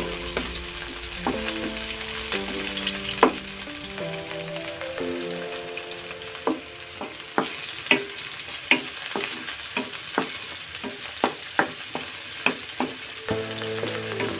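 Onion, garlic and tomato sautéing in hot oil in a pan, sizzling, as a spatula is stirred through them with sharp clicks and scrapes against the pan about once or twice a second. Soft background music with held chords plays underneath.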